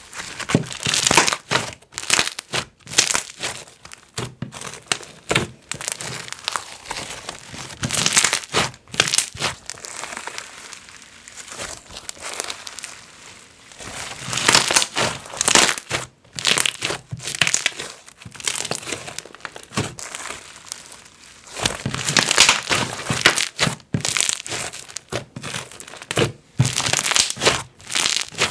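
Hands stretching, folding and squeezing a thick, bead-filled slime, making sticky crackling sounds. These come in repeated bursts a few seconds apart, with quieter stretches in between.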